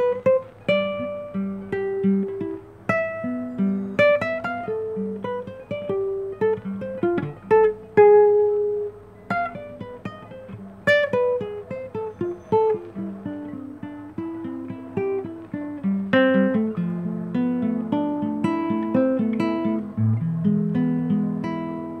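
Classical guitar played solo, fingerpicked: a melody of single plucked notes mixed with chords, each note ringing and dying away, with lower bass notes coming in near the end.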